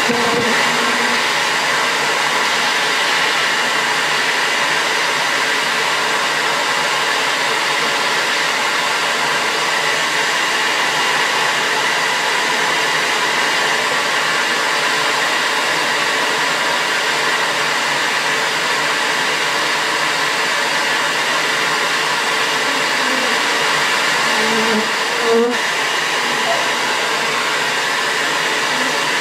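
Bee vacuum running steadily, a hissing motor drone that does not change. There is one brief knock about 25 seconds in.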